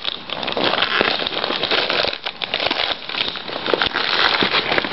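Dense crackling and rustling from things being handled right against the microphone, with many small clicks throughout.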